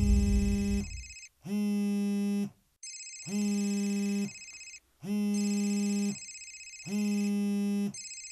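Mobile phone lying on a wooden table ringing and vibrating. It sounds five rings of about a second each, roughly two seconds apart, each a buzzing hum under a high electronic ringtone. A loud low rumble dies away during the first second.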